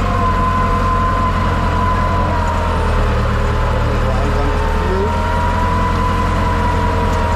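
Tractor engine running steadily under load, pulling a subsoiler through stubble, with a deep drone and a steady high whine over it.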